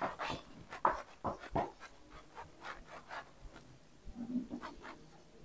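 Marker pen writing on a whiteboard: an irregular series of short strokes and squeaks as letters are drawn.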